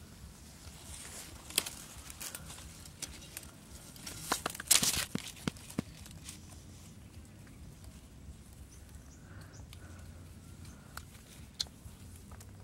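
Scattered clicks and rustling from hands handling a green coconut over a pile of dry twigs, with a louder, brief scraping rustle about five seconds in.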